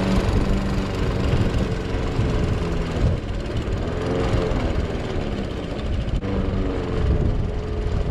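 Small gasoline engine of an old Craftsman lawnmower running steadily, now on a brand-new carburetor, spark plug and fresh gas. Its speed dips slightly and recovers about halfway through.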